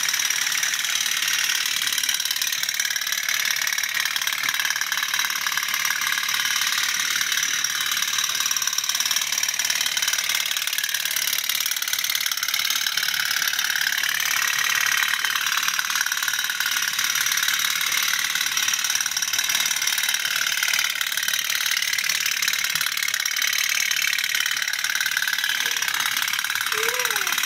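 Several toy pop-pop steam boats running in a steel basin of water, giving a fast, steady, rattling putter.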